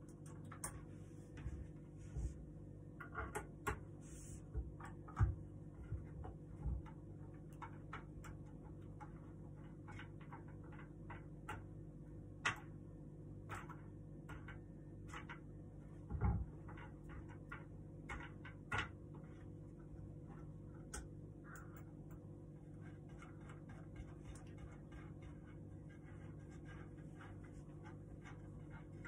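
Scattered light clicks and knocks from hand-assembling a wooden flat-pack table: screws, a small hand tool and wooden parts being handled and turned. A louder knock comes about halfway through, all over a steady faint hum.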